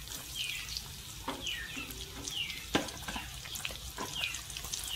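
Chopped onions sizzling in hot oil in a pan, stirred with a few sharp knocks of the spatula against the pan.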